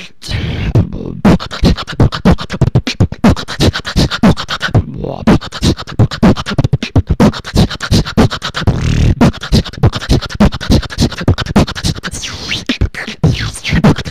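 Solo human beatboxing: a steady beat of vocal kick drums and snares made with the mouth, heard through an online voice-chat connection.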